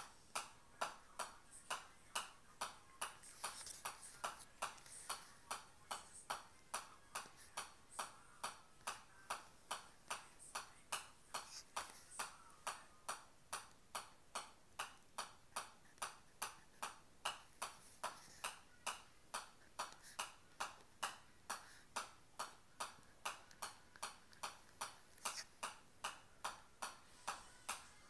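Golf ball bounced continuously on the face of a pitching wedge: steady sharp taps, about two and a half a second, each a click of ball on steel clubface.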